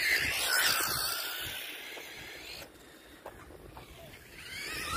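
1:10 electric RC buggies driving past on sand: a high motor whine passes close at the start, its pitch dropping as the car pulls away and fades over the next couple of seconds, with a hiss of tyres and spraying sand. Near the end another buggy's whine comes in, rising in level.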